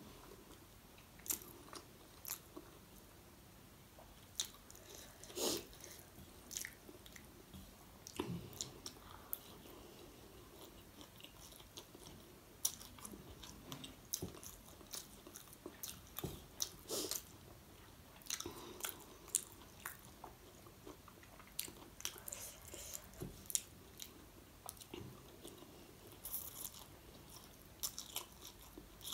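Close-miked chewing of chow mein noodles: wet mouth sounds with irregular sharp smacks and clicks.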